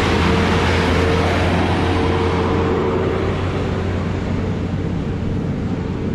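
Mitsubishi Canter Euro 4 truck's diesel engine running close by with a steady low hum. Its higher noise thins out and the sound eases a little in the second half, as if the truck is pulling away.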